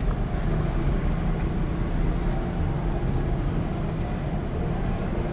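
Steady low rumble of street traffic, with engine noise running under the general street ambience.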